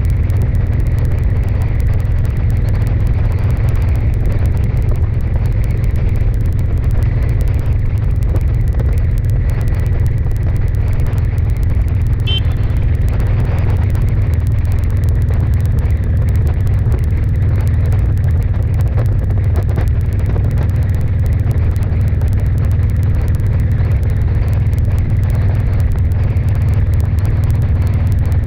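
Steady low rumble of a vehicle driving at a constant cruising speed, with a faint steady hum over it and wind on the microphone.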